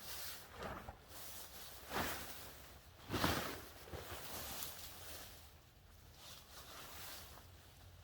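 A handful of short, irregular rustling and scuffing noises, the loudest about three seconds in, growing quieter over the last few seconds.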